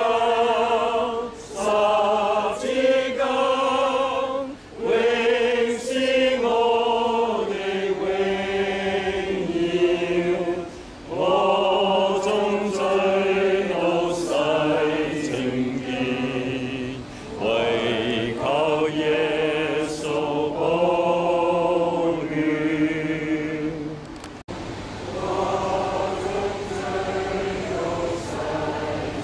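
A congregation singing a hymn together in Cantonese, slow with held notes.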